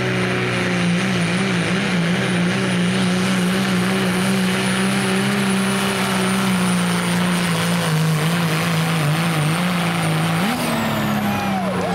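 Turbocharged diesel engine of a Dodge Ram pickup at full throttle, dragging a weighted pulling sled: a steady, loud, deep engine note with a thin high turbo whine over it. About ten and a half seconds in, the whine drops away and the engine note shifts as the throttle comes off at the end of the pull.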